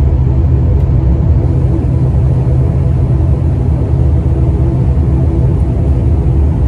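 Steady, loud rumble of an airliner's passenger cabin as the aircraft rolls along the runway after touchdown, heaviest in the bass, with a faint steady hum above it.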